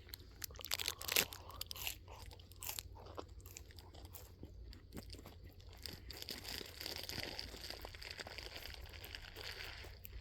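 A person chewing crunchy food close to the microphone, with irregular crunches that are densest in the first few seconds. A steady hiss rises about six seconds in.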